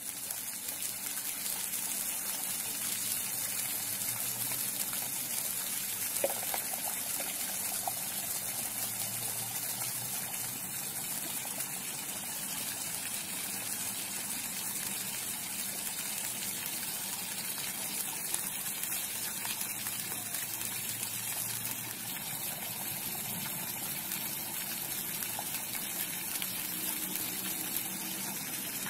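Fountain's thin water jets spraying up and splashing down onto the grated basins, a steady gushing hiss of falling water.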